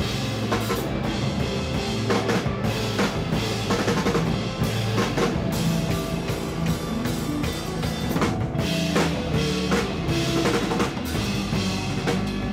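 Band music driven by a full drum kit, with kick drum and snare hits under sustained bass and pitched instruments.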